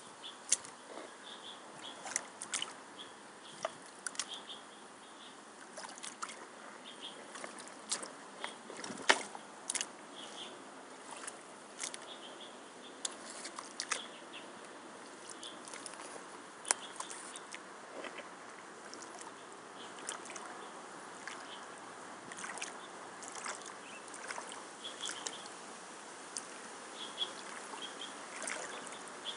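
Rubber wellington boots wading through shallow muddy water: a steady sloshing, broken by irregular sharp splashes and squelches as the feet step and stir the water.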